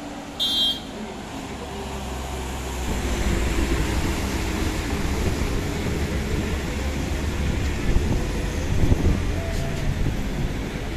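A moving road vehicle's engine and road noise heard from inside, a steady low rumble that grows louder about two to three seconds in as it picks up speed. A short high beep sounds about half a second in.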